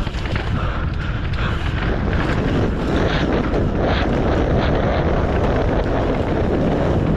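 Wind buffeting the helmet camera's microphone as a mountain bike rides down a dirt trail, a steady heavy rumble with scattered clacks and rattles from the bike and tyres on the dirt.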